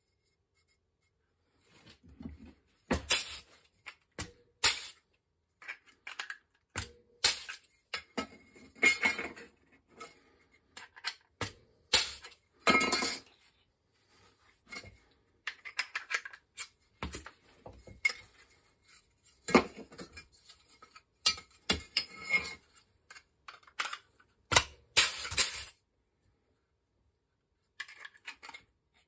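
Irregular sharp metallic clinks and knocks as a small flat-steel repair plate and a hand tool are worked against a steel bench vise, a few of them briefly rattling or ringing.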